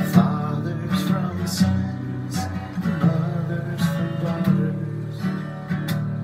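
Acoustic guitar strummed in a steady rhythm while a man sings along.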